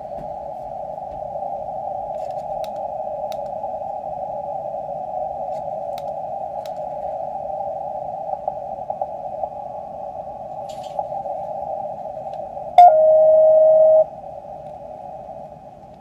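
Receiver audio from a QRP Labs QMX+ transceiver tuned across the 15-metre band: steady band hiss through a narrow audio filter, with a few faint clicks. About 13 seconds in, a strong steady tone of a received signal sounds for just over a second, then the hiss is quieter.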